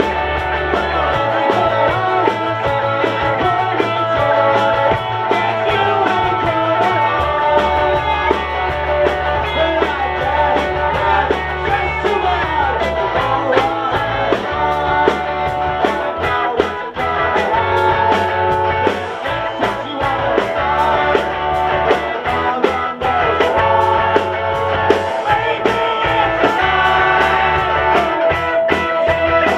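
Live rock band playing a song: two electric guitars, electric bass and drum kit, with a steady drum beat under held bass notes that change every few seconds.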